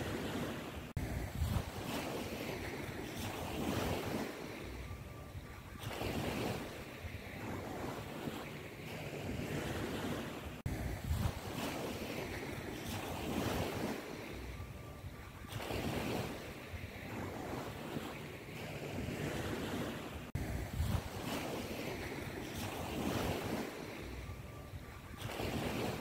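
Ocean surf rushing in and washing back in repeated swells. The same stretch of sound recurs about every ten seconds, like a looped wave track.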